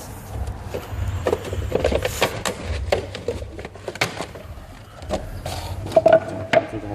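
Irregular clicks and knocks of car stereo wiring and dash parts being handled, over a low rumble.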